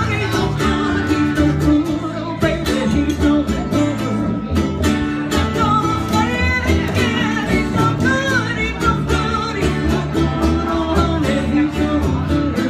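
Country-style music with guitars and a singing voice.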